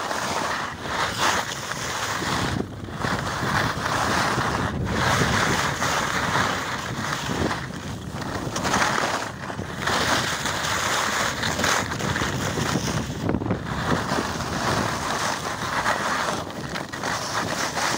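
Wind rushing over the microphone while the camera-carrying rider descends at speed, mixed with the scrape of their board or skis on packed snow. The rush swells and dips every few seconds as they turn.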